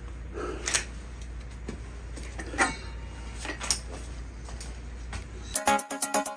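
A few light clicks and knocks of small gear being handled over a steady low hum. Near the end, electronic dance music with a steady beat starts suddenly.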